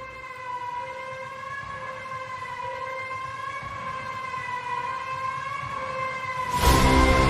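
Background music: a sustained, slightly wavering siren-like synth tone. About six and a half seconds in, a loud section with deep bass comes in suddenly.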